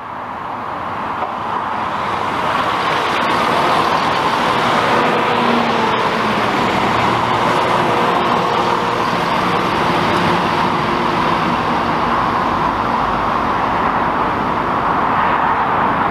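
Passenger multiple-unit train running past close by, a steady rumble of wheels on rail with a faint engine hum. It builds over the first few seconds and then holds.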